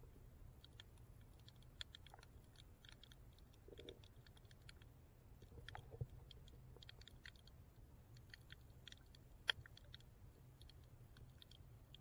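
Faint underwater sound through a submerged camera: a low steady hum with scattered small clicks and crackles, two sharper clicks standing out, one about halfway and one near the end.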